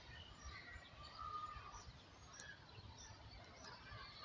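Faint birds chirping and calling in short, scattered notes over a low, quiet background.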